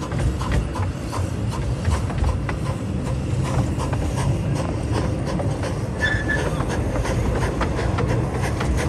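Rhyl Miniature Railway's 15-inch-gauge train running along its track: a steady low rumble with frequent clicks of the wheels over the rails, and a short high squeal about six seconds in.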